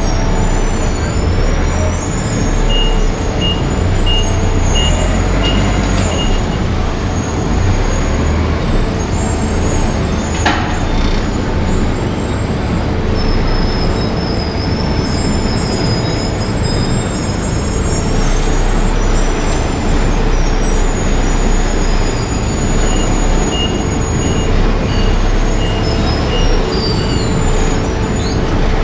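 Zetor 7011 tractor's four-cylinder diesel engine running steadily while the tractor is driven. Thin high squeals come and go above it, and a run of short, evenly spaced high pips sounds near the start and again near the end.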